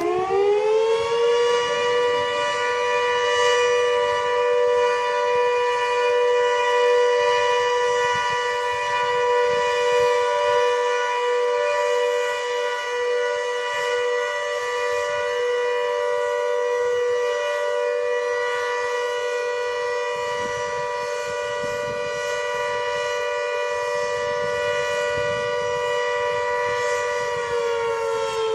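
GP8 siren sounding on test: it finishes winding up in the first second or so, holds a steady, loud multi-tone wail, and begins to wind down near the end.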